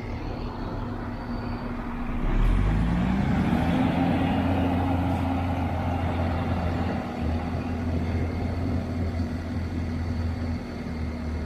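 Heavy diesel engine running, then throttled up about two seconds in and holding at higher revs under load.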